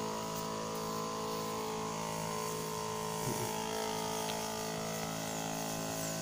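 Battery-powered knapsack sprayer's pump motor humming steadily while spraying.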